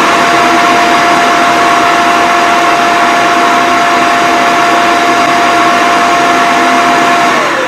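The TP-Link Tapo RV30 Plus auto-empty dock's suction motor runs at full speed, sucking the dust out of the robot vacuum's bin. It is a loud, steady rush of air with a constant whine, and about seven seconds in the motor starts to spin down with a falling whine.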